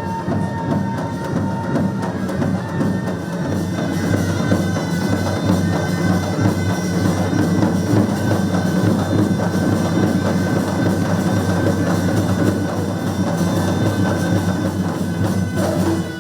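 Live Moroccan wedding music driven by dense, fast drumming, with some held melodic tones above the percussion.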